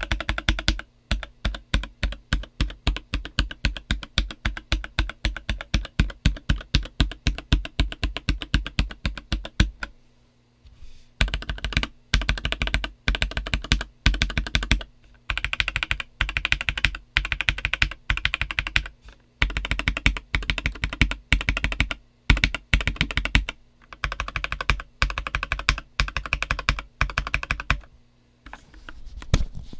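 Typing on an MK870 mechanical keyboard fitted with a polycarbonate plate, JWK Black linear switches and DCX ABS keycaps. There is a fast, even run of keystrokes for about ten seconds, then a short break, then bursts of typing with brief pauses between them.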